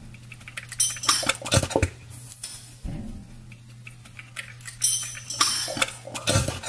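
An opened metal can of condensed cream of mushroom soup is shaken upside down over a pot, giving a series of short knocks and clicks. The thick soup slides out with a wet plop near the end, a sound called gross.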